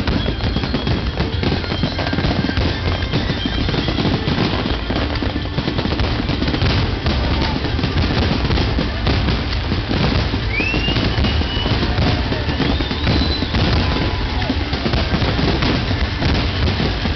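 Aerial fireworks display: a dense barrage of shell bursts and crackling over a continuous low booming, with music playing along. A couple of short rising whistles come through about ten and thirteen seconds in.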